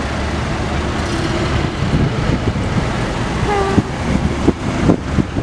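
Engines of a line of classic cars running as they roll slowly past at low speed: a steady low rumble, with a few sharper bursts in the last two seconds.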